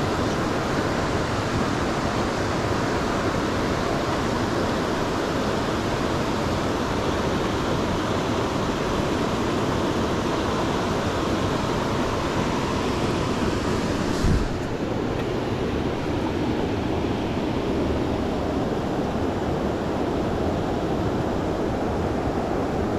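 Fast glacial river rushing over rocks, a steady full roar of water, with a brief knock about two-thirds of the way through.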